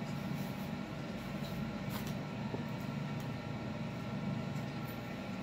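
Steady low hum of room background, with a few faint clicks.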